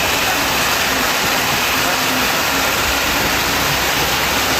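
A heavy truck's engine running under a steady, loud rushing noise.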